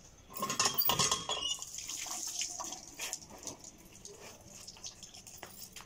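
Metal cooking pots and utensils clinking and clattering as they are set down and handled, a burst of strokes in the first second and a half, then fewer, quieter knocks.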